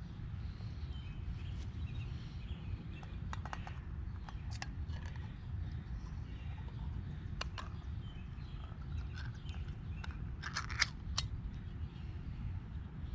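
Scattered sharp clicks and taps from handling cooking gear, with a quick cluster of them about two-thirds of the way in, over a steady low rumble and faint bird chirps.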